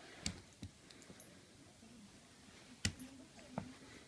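A few scattered light taps and knocks from pets playing together, the loudest about three seconds in, with faint low sounds in between.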